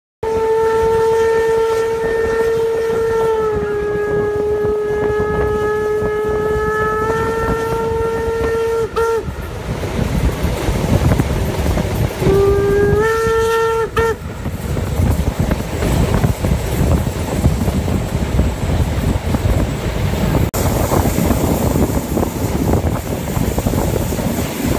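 Steam locomotive whistle: one long blast of about nine seconds that dips slightly in pitch midway and comes back up, then a shorter blast rising in pitch about twelve seconds in. After that the steam-hauled train runs on with a steady rumble of wheels on rail, heard from a coach of the train.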